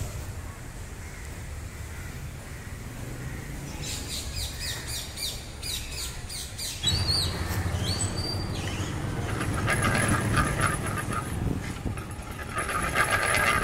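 Small birds chirping outdoors with short rising and falling calls. About seven seconds in the sound changes abruptly to a stronger low rumble, and a rapid, even clatter builds over the last few seconds.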